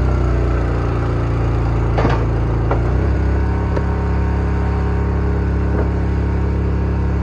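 Log splitter's engine running steadily under a hydraulic ram, its note shifting about three seconds in as the load changes, with a sharp crack about two seconds in and a few lighter knocks later as wood is split and handled.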